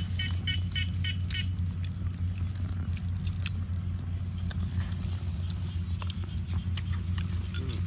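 People eating grilled chicken with gloved hands: scattered small clicks and rustles over a steady low hum. A rapid run of short chirps, about four a second, stops about a second and a half in.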